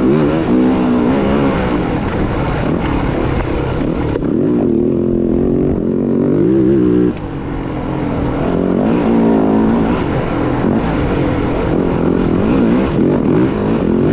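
Dirt bike engine being ridden, its revs rising and falling again and again. The level drops suddenly about halfway through, then the engine builds back up.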